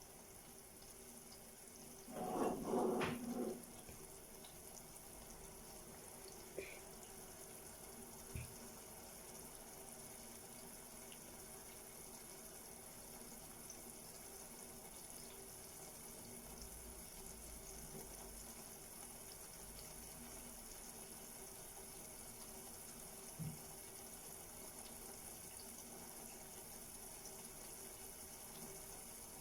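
Herbs in water and olive oil simmering faintly and steadily in a pot over a low flame, the water cooking off. A brief muffled knock about two seconds in.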